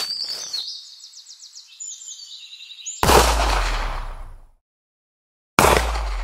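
Birds chirping, then about three seconds in a single loud pistol shot that dies away over a second and a half. After a moment of silence, a sudden heavy boom near the end opens drum-led music.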